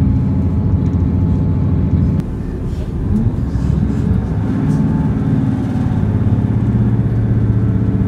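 A diesel train's underfloor engine running hard under power, heard inside the passenger carriage as a steady droning note over the running rumble. About two seconds in the sound cuts to another carriage, where a similar engine note picks up again.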